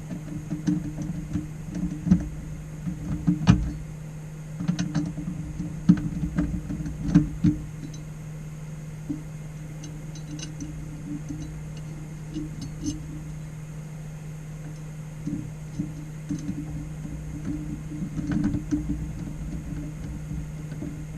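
A monitor being screwed onto a VESA mount: scattered clicks and knocks of screws, plastic and metal being handled, bunched in the first several seconds and again near the end. A steady low hum runs underneath.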